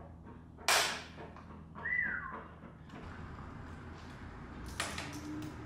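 Small hardware clicking as a motorcycle turn-signal blinker and its bolt are handled and fitted into the plastic tail panel: one sharp click less than a second in and a few lighter clicks near the end. A short whistle-like tone falls in pitch about two seconds in.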